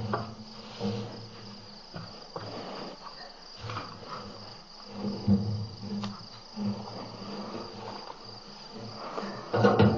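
Night insects chirping steadily with a high, even tone, with scattered low thumps and rustles close to the microphone.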